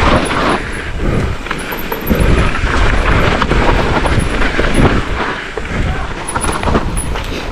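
Mountain bike descending a rough trail: a continuous rumble of tyres over the ground and wind on the camera microphone, with the bike rattling and many short knocks from roots and rocks.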